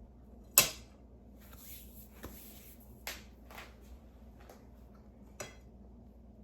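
Cutlery clicking against a plate while a piece of chicken is cut and taken up to eat: one sharp click about half a second in, then a few softer taps and a brief faint rustle.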